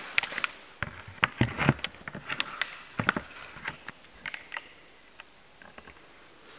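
Irregular light clicks and knocks, most of them in the first four seconds or so.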